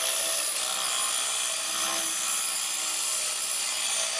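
Cordless drill running steadily to spin a wooden cylinder in a shop-built router lathe, with 150-grit sandpaper on a block held against the turning wood: a steady sanding hiss over the drill motor's high whine.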